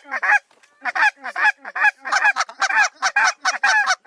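Goose honks and clucks in a fast, loud run of short calls, about three or four a second, with a brief break near the start.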